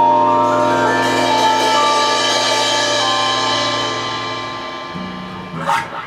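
Music: a held closing chord, with many sustained notes slowly fading away. The bass drops out past the middle, and a short noise comes near the end.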